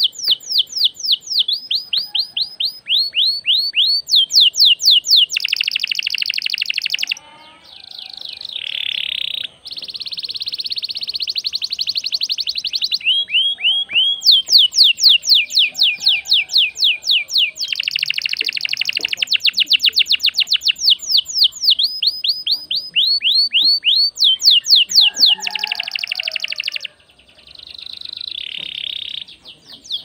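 Domestic canary in full song: a long, nearly unbroken run of rapid trills, each a quick series of repeated downsweeping notes, switching to a new trill pattern every second or two. There are a few brief pauses part-way through and near the end.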